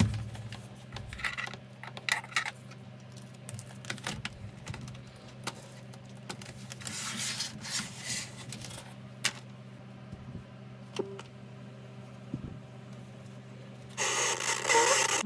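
Clicks, knocks and scrapes of a plastic cassette boombox being handled and set down, over a steady low hum. About fourteen seconds in, a loud burst of radio static starts as the set is switched on and tuned.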